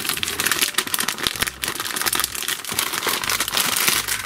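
A plastic candy-kit wrapper being pulled open by hand, crinkling and tearing in a dense, continuous crackle.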